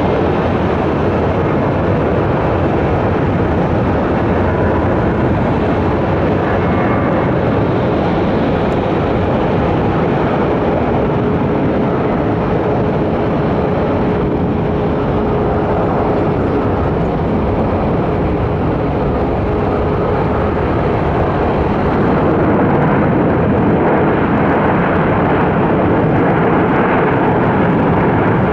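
Jet engine noise of a Boeing 787-8 on its landing: a loud, steady rushing noise with a faint held tone in the middle, growing louder near the end.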